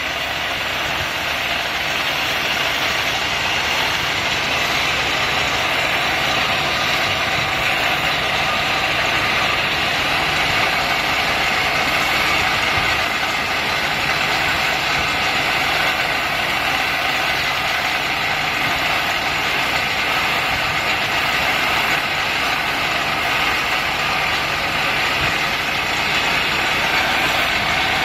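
Belt grinder running, its abrasive belt sanding a knife handle pressed against it to shape it: a steady grinding hiss over the machine's motor.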